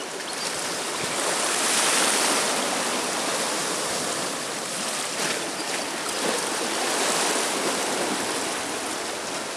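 Small waves washing over a concrete boat ramp in shallow seawater: a steady rushing hiss that swells about two seconds in and again around seven seconds.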